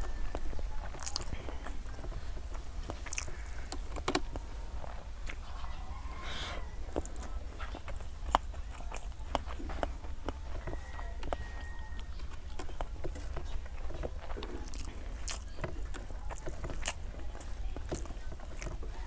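Eating rice and curry by hand: fingers mixing and squishing rice against a steel plate, with irregular wet mouth clicks and chewing.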